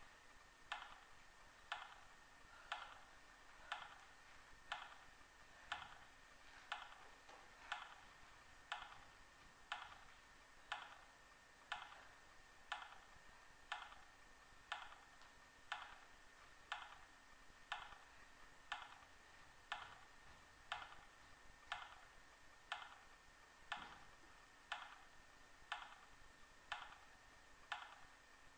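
Faint, steady ticking, about one tick a second, like a clock, over a low steady hum.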